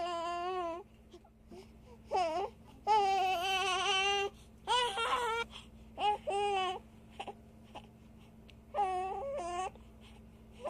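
A baby's voice: a series of about six high-pitched, wavering squeals with pauses between them, the longest lasting over a second about three seconds in.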